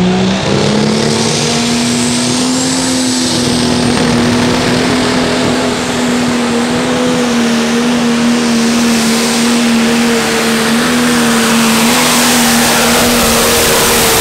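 Turbocharged diesel engine of a John Deere Pro Stock pulling tractor at full power under load. It revs up sharply about half a second in as the tractor launches and drags the weight-transfer sled, then holds a steady high note. A thin high whistle rises in pitch over the first few seconds.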